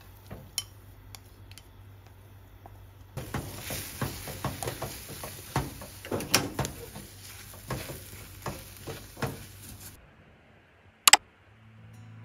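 Wooden chopsticks scraping and tapping against a nonstick frying pan while scrambling egg, in irregular clicks over a light hiss, most of them from about three seconds in. Near the end, after the stirring stops, comes one sharp, loud double click.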